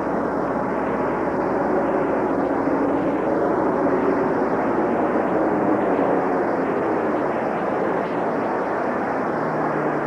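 Four-engine turboprop patrol aircraft, a US Navy Lockheed P-3 Orion, flying low past with a steady engine drone.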